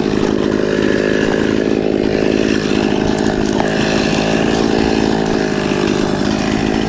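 Chainsaw running at a steady pitch, cutting into pine wood.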